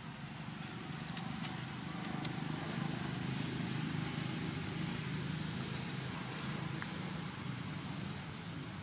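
A motor vehicle engine running as a low hum that grows louder toward the middle and fades again, as if passing by.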